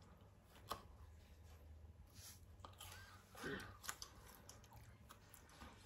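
Faint chewing of bamboo shoot slices, with scattered small clicks and mouth noises.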